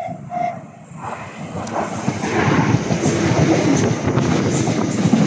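Southeastern electric multiple-unit train approaching through the station, its wheel and track rumble growing louder from about a second in and then holding steady and loud.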